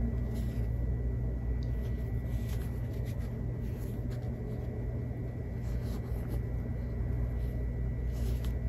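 Faint soft rustles and scrapes of cotton charm-pack squares with pinked edges being peeled apart and flipped by hand, over a steady low hum.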